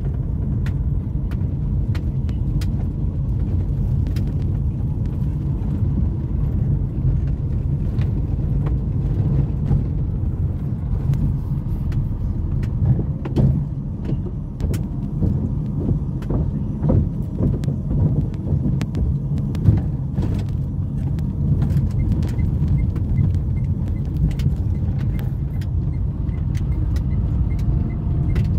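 Car tyres rumbling over cobblestone paving, heard inside the cabin, with many small knocks and rattles throughout. There is a stretch of heavier knocks about halfway through as the car crosses a wooden plank bridge.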